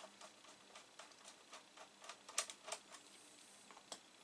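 Faint, irregular light clicks and ticks of small screws and plastic computer-case parts being handled during reassembly, with a couple of louder clicks about two and a half seconds in.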